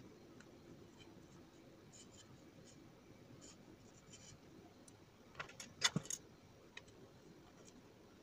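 Small scratches and clicks of a digital multimeter's plastic case and LCD panel being handled and pressed into place, with a quick cluster of sharp clicks a little past the middle.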